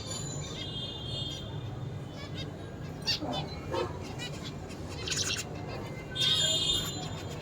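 Zebra finch singing and calling: short, buzzy, nasal notes in irregular bursts, loudest near the end, over a steady low hum.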